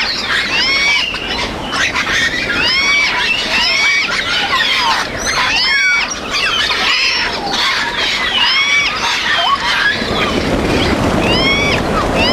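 Several parrots squawking together in short, hooked calls that overlap one another. About ten seconds in, a low rumbling noise rises underneath.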